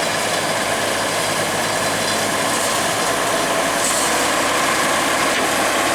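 Heavy machinery diesel engine running steadily, an even, unbroken drone.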